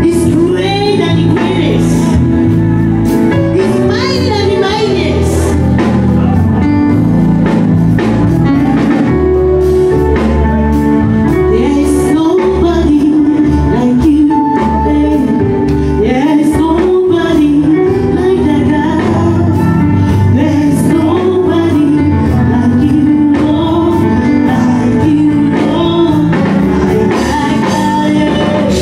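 Live worship music in a church: a band playing with a singer's voice over it, steady and loud throughout.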